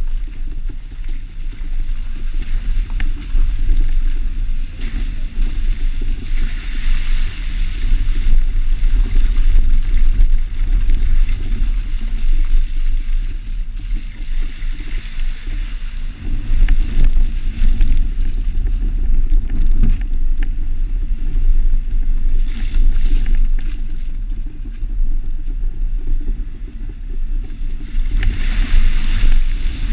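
A Jeep driving, heard from a camera on its outside mirror: a heavy, continuous low rumble of engine and wind buffeting the microphone. Several stretches of brighter hiss come and go, each a second or two long.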